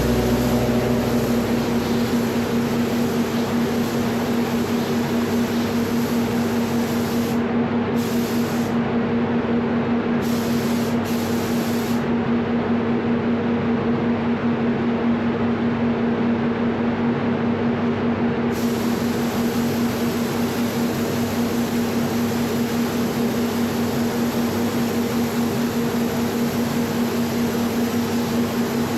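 Sata X5500 HVLP spray gun hissing as it lays down water-based base coat, over a steady low hum.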